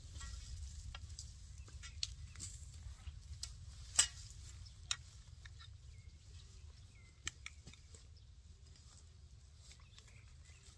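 Scattered clicks and knocks from a hammer and metal stakes being handled in nylon netting, the sharpest about four seconds in, over a steady low rumble. A few faint bird calls come in near the middle.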